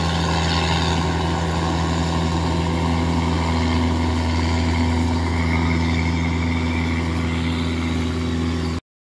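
Kubota DC105X combine harvester with a modified exhaust, its diesel engine running steadily at working throttle while it cuts rice. The sound cuts off suddenly near the end.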